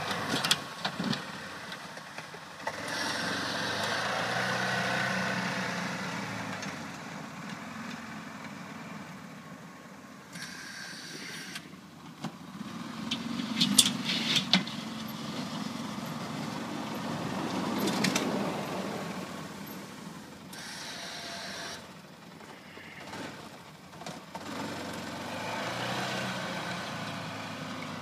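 Arctic Cat Prowler UTV engine running as it plows snow, its sound swelling and fading in waves as it moves back and forth. A cluster of sharp clanks comes about halfway through.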